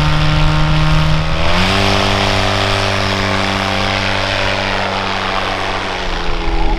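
Viking 195 engine (a turbocharged 1.5-litre Honda Accord engine with a reduction gearbox) driving a light STOL airplane's propeller. Its steady note rises sharply about one and a half seconds in as the throttle opens for a short takeoff run, then holds at full power with propeller noise, dipping slightly near the end.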